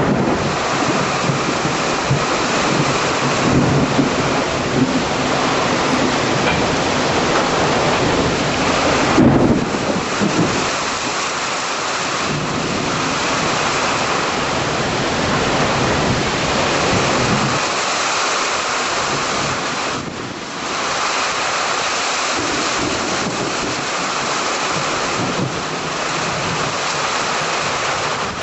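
Heavy rain pouring steadily during a severe thunderstorm, with low rumbles of thunder through the first ten seconds or so, loudest about nine seconds in.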